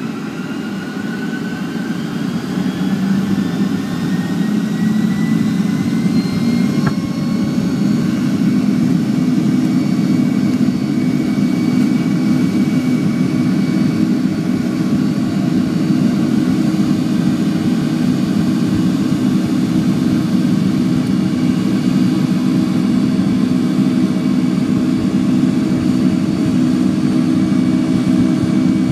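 Boeing 757-200's turbofan engines spooling up to takeoff thrust, heard from inside the cabin: a rising whine over the first several seconds, then a loud steady rumble as the jet accelerates down the runway.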